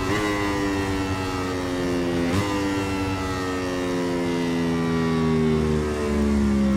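Yamaha YZR-M1 MotoGP racing motorcycle's crossplane inline-four engine running loud, its pitch falling slowly and steadily, with a brief break in the note about two and a half seconds in.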